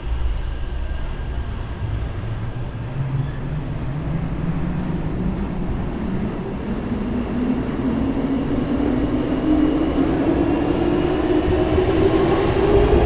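Hankyu electric train accelerating at the station, its traction motor whine climbing steadily in pitch. A short hiss sounds near the end.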